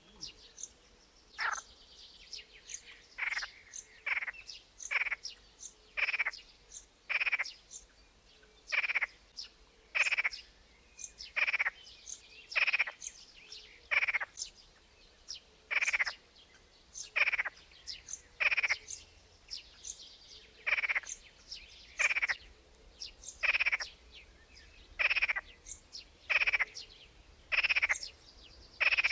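A frog calling over and over, a short croak a bit less than once a second, with birds chirping faintly at a higher pitch.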